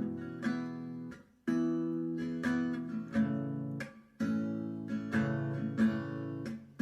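Acoustic guitar music: strummed chords repeating in a steady rhythm, with brief breaks between phrases.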